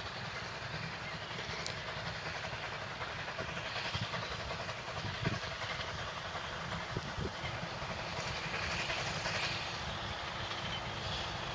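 Narrow-gauge steam train approaching: a steady rumble and hiss from the locomotive and its coaches, with a few faint knocks about halfway through.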